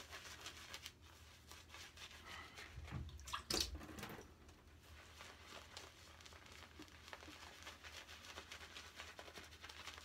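Razorock Plissoft synthetic shaving brush working menthol shaving-soap lather over stubble: a faint, scratchy, wet crackle of bristles on skin. A louder handling knock comes about three to four seconds in, while the brushing pauses.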